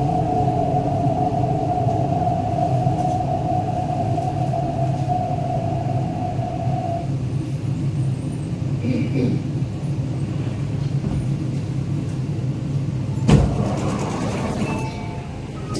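Inside an MTR East Rail Line R-train as it slows to a stop at the platform: a steady low rumble, with a steady whine that cuts off about halfway through. Near the end a single sharp thud comes as the doors open.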